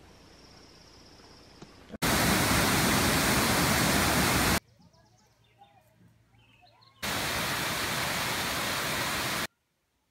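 Loud, even rushing water from rapids for about two and a half seconds, after a quieter opening with a faint high whine. Then comes a quiet stretch with faint chirps, and a second loud stretch of rushing noise that cuts off abruptly to near silence near the end.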